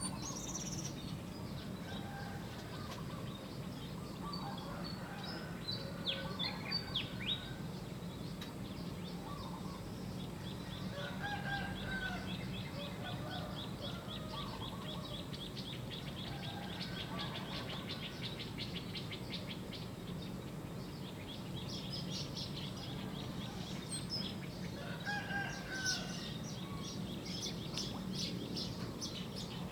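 Birdsong with several birds chirping and calling, including a fast, high, repeated trill, and a rooster crowing, over a steady low background noise.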